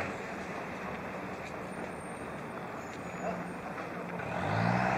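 A vehicle engine running with a low steady hum over a noisy background, getting louder near the end.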